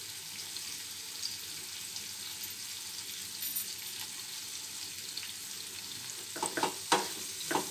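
Star fruit slices frying in oil in a nonstick pan, a steady sizzle. Near the end a spoon begins stirring, scraping and knocking against the pan several times.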